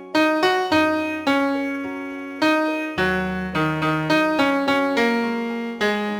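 Piano playing the song's melody over low bass notes, one struck note about every half second, each ringing and fading until the next.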